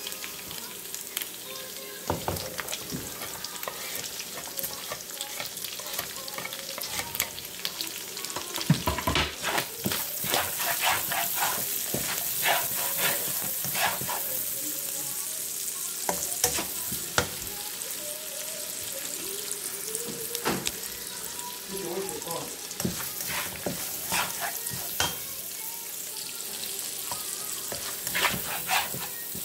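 Browned ground pork and diced white onion sizzling in a nonstick pan, with a slotted spatula stirring and scraping through the mixture in frequent short strokes against the pan.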